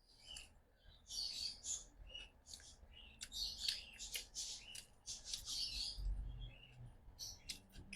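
Close-miked chewing of a tortilla wrap: wet smacking and squelching mouth sounds that come and go in short runs, with a few sharp lip and tongue clicks near the end.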